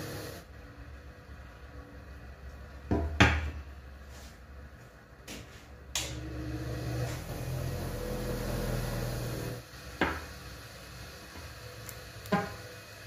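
Knocks and clatter of an electric drill's metal armature and small parts being handled and set down on a workbench. There are four sharp knocks, the loudest a double hit about three seconds in, with soft background music underneath.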